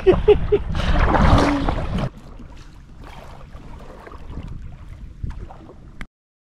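Wind buffeting the microphone over paddle splashes and choppy water around an inflatable kayak. After about two seconds it drops to quieter water lapping at the kayak, then cuts to silence about six seconds in.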